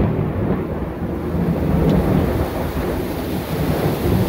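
Thunder rolling and rumbling through a heavy rain downpour. The deep rumble swells and fades unevenly while the rain hiss stays steady.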